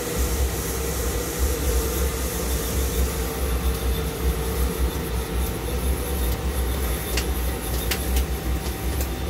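Swistek RB20Y CNC Swiss-type lathe running under power. A steady low mechanical rumble starts just after the outset, while a higher hum and hiss fade away in the first few seconds. There are a few faint clicks near the end.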